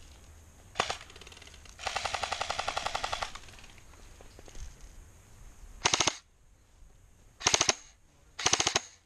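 Airsoft guns firing on full auto: a rapid, even rattle lasting about a second and a half, then three short, louder bursts in the last few seconds.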